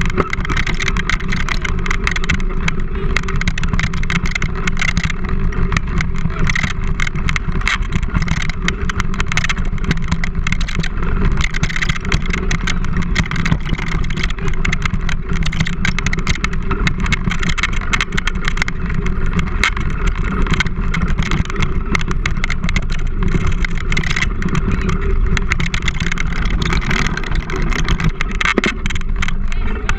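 Steady rumble and constant rattling of a dog-drawn wheeled rig rolling fast over a rough dirt trail, heard through a handlebar-mounted action camera, with wind buffeting the microphone.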